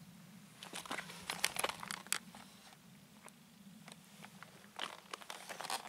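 Cat's paws stepping through dry heather, grass and loose soil: crackling and crunching in two clusters, about a second in and again just before the end.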